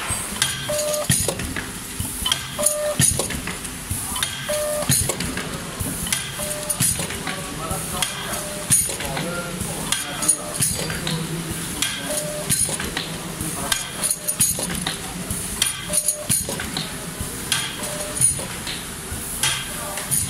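Vertical four-side-seal sachet packing machine running, going through its cycle about every two seconds: each cycle a cluster of mechanical clacks with a short tone, over a steady hiss.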